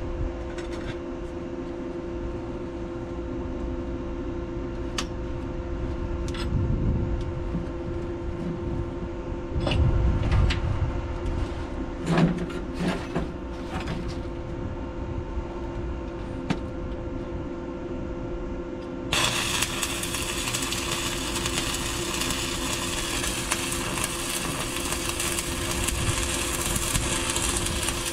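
Electric arc welding on a steel pipe deck penetration: the arc strikes about two-thirds of the way in and then crackles and hisses steadily. Before it, a steady engine hum with a few knocks and clanks as the welder gets into position.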